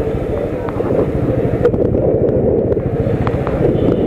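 Motorcycle engine running at road speed, with wind buffeting the microphone in a steady, low rushing noise.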